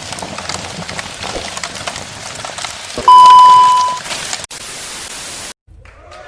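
Crackling noise with scattered clicks, then a loud, steady beep lasting about a second. Two bursts of static hiss follow and cut off abruptly near the end.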